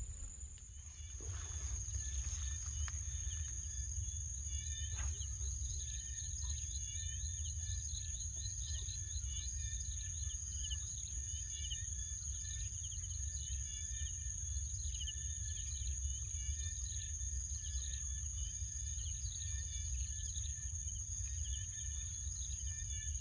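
Marsh insects calling: a steady high-pitched whine with many short repeated chirps over it, above a low steady rumble. A few faint knocks come in the first few seconds.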